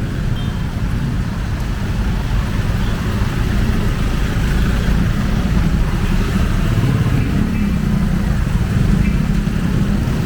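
Steady low rumble of road traffic, with vehicle engines and tyres running on a wet, flooded street.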